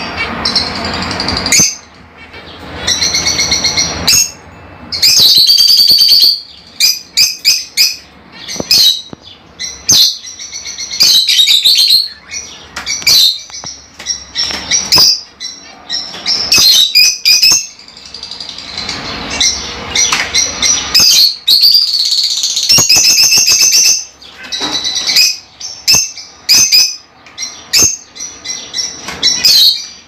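Lovebirds chattering: rapid, shrill, high-pitched calls in loud bursts with short gaps between them.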